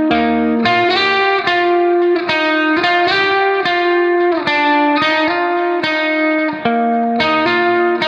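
Instrumental background music of picked notes, each struck sharply and fading, in an even, unhurried melody.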